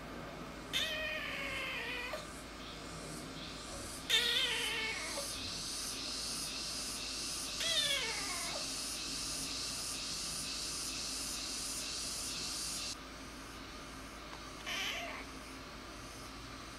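Young ginger-and-white kitten meowing four times, short high cries spaced a few seconds apart, the third sliding down in pitch. A steady hiss runs behind the first three meows and cuts off suddenly about thirteen seconds in.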